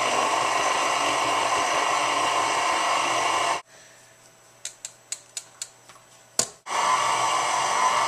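Electric mixer running steadily on low speed, beating cake batter; it stops about three and a half seconds in, a few light clicks and taps follow, and the mixer starts again near the end.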